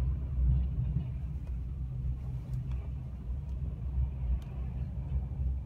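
Low, steady rumble of road noise inside the cabin of a broken-down car being towed behind a recovery truck, with a few faint clicks.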